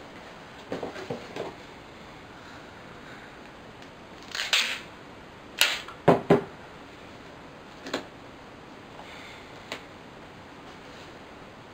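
Gaffer tape being pulled off its roll and torn, with hands knocking and pressing it onto a cardboard box: a short noisy rip about four and a half seconds in, then a few sharp cracks around six seconds and lighter clicks after.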